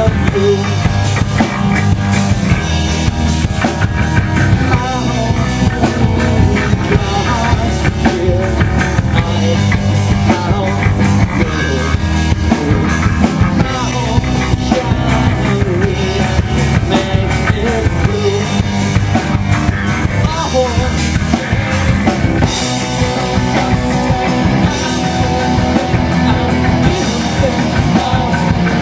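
Live rock band playing loud and without a break: drum kit with bass and guitar, the drums played by a one-armed drummer.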